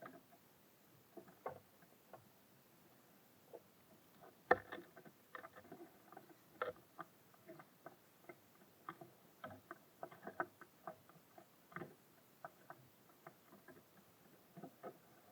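Irregular light taps and knocks of small birds pecking at seed and hopping on a wooden bird feeder. The taps are sparse at first, then come several a second from about four seconds in, the loudest near that point.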